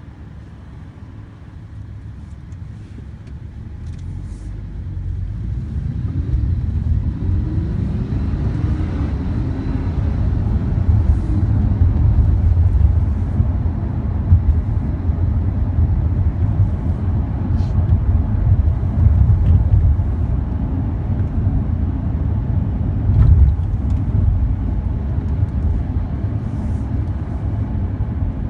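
Lamborghini Huracán's V10 engine heard from inside the cabin, growing louder and rising in pitch as the car accelerates, then settling into a steady loud low drone mixed with road rumble. A single short bump comes late on.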